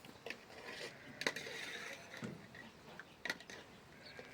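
A few light clicks and knocks of small stones being picked up and set down, the clearest one about a second in and another near the three-second mark.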